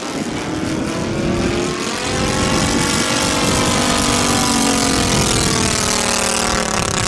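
Kolm 155 petrol engine of a large-scale RC Spitfire model in flight overhead, running steadily, its pitch climbing over the first few seconds and then easing down as the plane passes.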